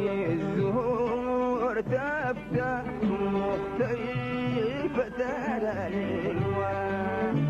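Instrumental interlude of a Sudanese song: violins play a gliding, ornamented melody over the band's steady accompaniment.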